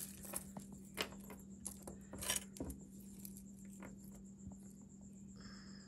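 Costume jewelry clinking and rattling as pieces are handled: several light clicks of beads and metal in the first half, then quieter, over a faint steady hum.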